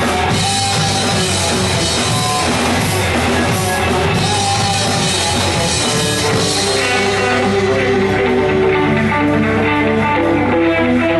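Live rock band playing, with electric guitars, bass and a drum kit. About two-thirds of the way through, the cymbals drop away and picked guitar notes carry the music.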